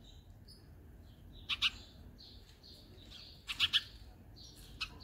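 House sparrows chirping back and forth: loud short chirps close by, two about a second and a half in, a quick run of three around three and a half seconds, one more near the end, with fainter repeated chirps from a farther sparrow in between. A male sparrow is calling at another male nearby.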